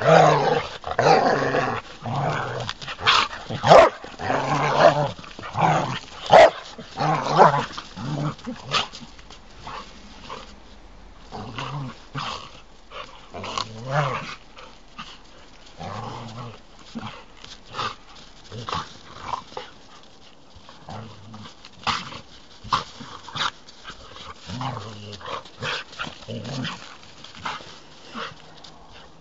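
Two dogs, a Norwegian elkhound and a small spaniel, play-fighting with growls, snarls and short yips. The sounds come thick and loud for the first nine seconds or so, then grow sparser and quieter.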